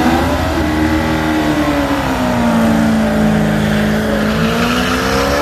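Drag racing car's engine held at high revs. The pitch climbs at the start, sags slowly, then climbs again near the end.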